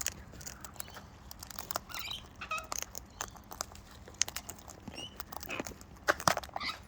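Parrots cracking and crunching seed at close range: a continual irregular crackle of small sharp clicks, louder in a cluster about six seconds in, with a few short soft chirps from the birds.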